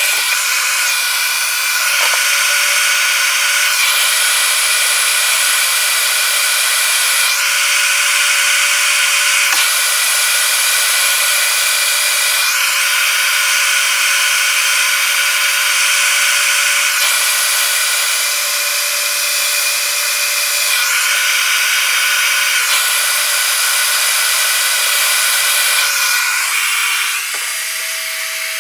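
Electric heat gun running steadily, its fan blowing with a whine, as it heats heat-shrink wire connectors. It gets quieter near the end.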